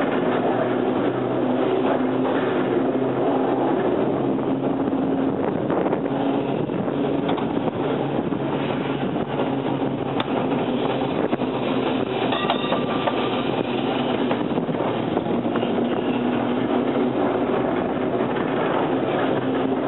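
Sheffield tram 74, an electric tram built in 1900, running along the track with riders on board: a steady low hum over the rumble and light clatter of its wheels on the rails.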